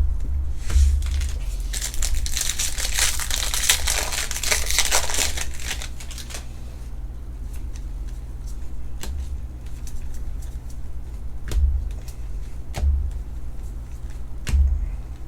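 Crinkling and tearing of a foil trading-card pack wrapper being opened and handled for several seconds, followed by light clicks and a few dull thumps from handling on the table.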